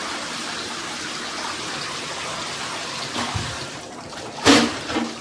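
Water spraying from a shower head in a steady hiss that grows quieter about three seconds in, with a brief loud knock or splash near the end.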